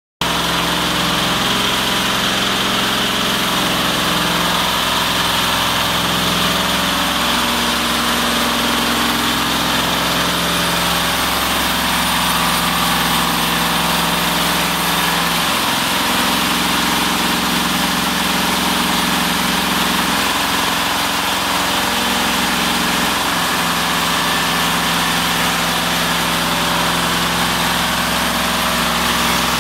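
Diesel engine of a portable horizontal band sawmill running steadily while its band blade cuts along a log. The engine note shifts briefly a few times.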